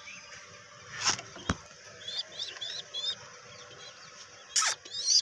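A quick series of about four short, high bird chirps about two seconds in, after two sharp clicks. A brief loud rustle comes near the end.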